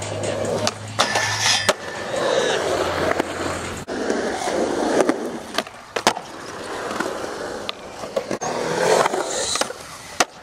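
Skateboard's hard urethane wheels rolling on a concrete skatepark surface, with repeated sharp clacks and slaps of the board striking the ground and ledges during tricks.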